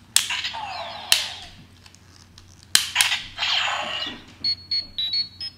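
Power Rangers Super Megaforce Morpher toy with a Ranger Key being turned in it. Sharp clicks, each followed by a burst of electronic sound effect, then a run of short high beeps near the end: the tone it plays when the key is turned a second time.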